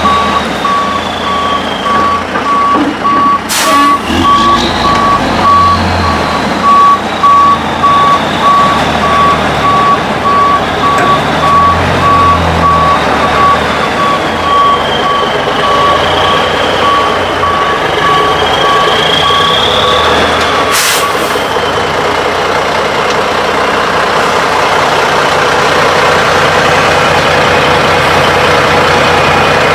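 Tri-axle dump truck reversing through mud: its backup alarm beeps steadily over the running diesel engine. About two-thirds through, the beeping stops with a short hiss as the truck halts, and the engine runs on.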